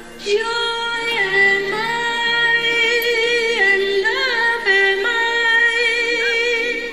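Background music: a woman singing long, held notes that glide from one pitch to the next.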